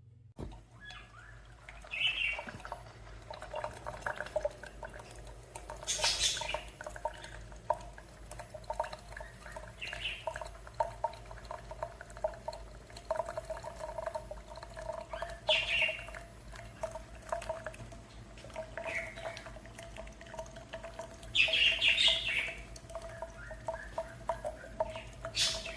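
Single-serve pod coffee maker brewing: a steady hum runs under irregular spurts of hissing and sputtering every few seconds. The longest spurt comes a little before the end.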